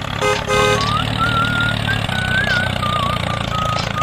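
Tractor engine sound running steadily at a low rumble, with two short toots near the start. From about a second in, a thin, high, wavering whistle plays over it.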